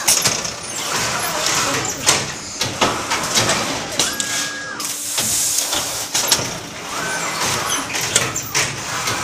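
CUDA CA430 automatic T-shirt folding and bagging machine cycling: a motor whine that rises, holds and falls twice, a burst of hissing after the first whine, and scattered clicks and clacks of the folding mechanism.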